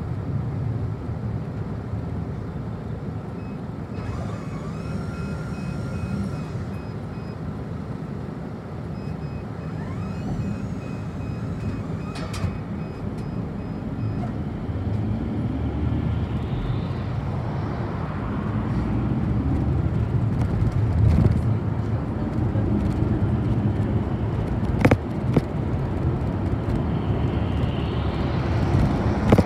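Inside a city bus: the engine runs steadily while the bus waits at a junction, with a quick repeating electronic beep for several seconds, then the bus pulls away and the engine and road noise grow louder.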